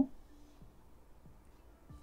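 Faint background music, close to silence.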